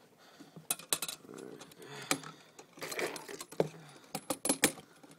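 Steel Conibear 110 body-grip trap and its chain being handled: irregular sharp metallic clinks and rattles, several of them ringing briefly.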